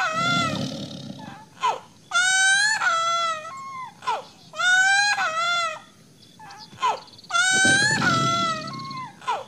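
A young child crying: three drawn-out wavering wails, each about a second long and nearly identical in shape, spaced two to three seconds apart. Short falling catch-breath sobs come between them.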